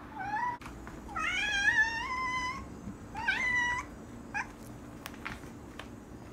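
Domestic cat meowing insistently, four times: a short meow, a long drawn-out one, a shorter one, then a brief chirp-like one. She is crying to be given a dangled hair tie, her favourite toy.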